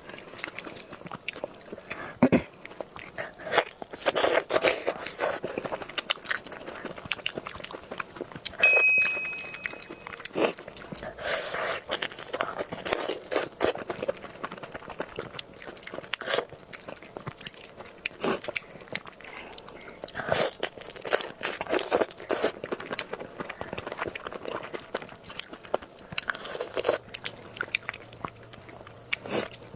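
Close-miked mukbang eating: repeated bites and chewing with irregular crunching and crackling.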